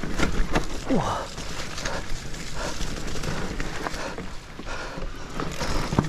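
An e-mountain bike rattling and clattering down a rough, overgrown forest singletrack: tyres rolling over dirt and grass, with scattered knocks from the frame and drivetrain. A brief falling tone sounds about a second in.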